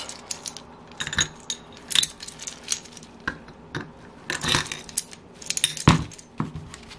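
The steel jaws and bolts of a three-jaw bearing puller clinking and jangling against each other as it is handled and fitted by hand, in irregular light clicks, the loudest about a second before the end.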